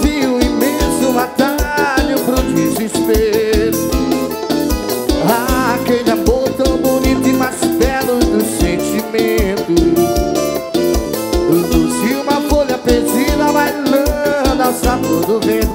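Arrocha music played live by a band, with a steady beat and a gliding melody line over it.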